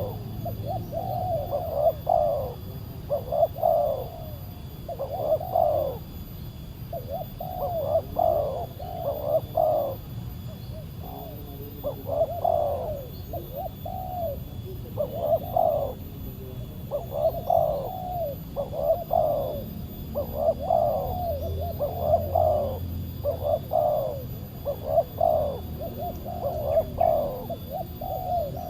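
Spotted doves (tekukur) cooing over and over, one short phrase after another, about one a second, under a low steady rumble.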